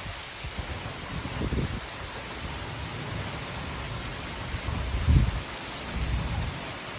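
Heavy rain falling steadily on pavement and lawn, a constant hiss. A few low gusts of wind buffet the microphone, about a second and a half in and again around five and six seconds.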